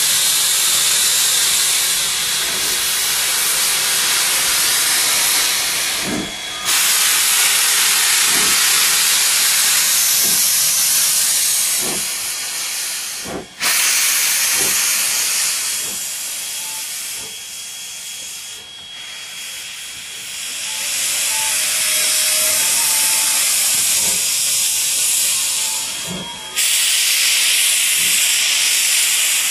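Steam hissing loudly and steadily from around the cylinders of a Baldwin-built AC16 steam locomotive standing with its train, breaking off sharply a few times and coming back, with faint thuds about every second or two underneath.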